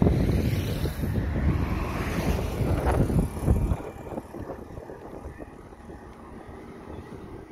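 Wind buffeting the microphone, a loud, ragged low rumble that drops off suddenly about four seconds in, leaving only a faint outdoor background.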